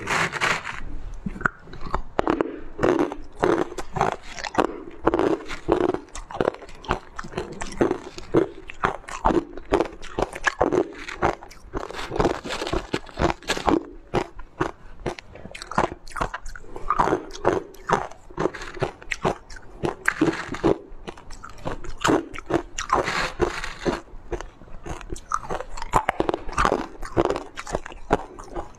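Chunks of ice being bitten and chewed: a rapid, irregular run of sharp crunches and cracks.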